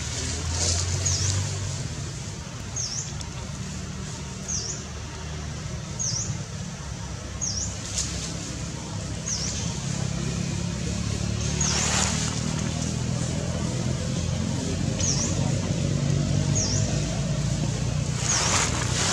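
A bird's short, high chirp repeating every second or two over a steady low rumble of distant traffic.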